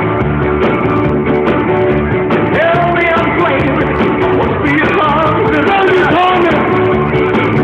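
Rock music with a singer, playing loudly throughout.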